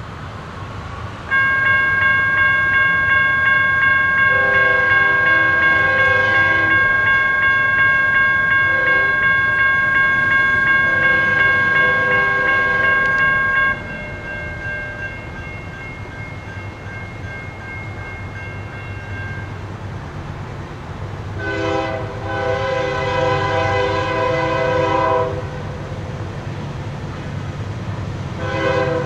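Grade-crossing warning bell starting about a second in with a steady, rapid ringing, loud at first and fainter from a little before halfway. Over it, the horn of the approaching CSX freight's GE CW40-8 lead locomotive sounds the crossing signal: several blasts of different lengths, the longest about three-quarters of the way in and a short one at the very end, over the low rumble of the locomotive.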